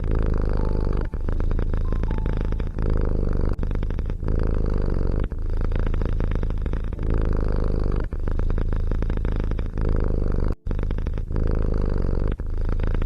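A domestic cat purring steadily, with brief breaks every second or so between breaths.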